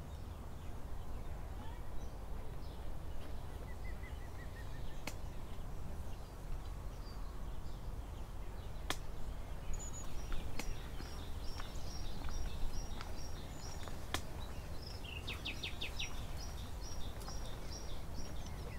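Countryside ambience: birds singing in short trills and rows of quick chirps over a low steady rumble, broken by a few sharp knocks of a hoe striking the ground, a few seconds apart.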